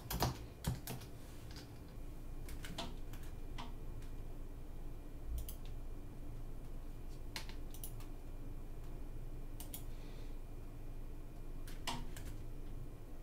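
Scattered clicks of a computer keyboard and mouse as an online sign-up form is filled in: a short run of keystrokes at the start and again after a couple of seconds, then single clicks every second or two.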